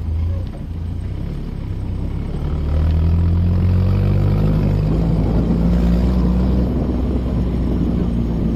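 A vehicle engine running with a steady low drone, which grows a little louder about three seconds in.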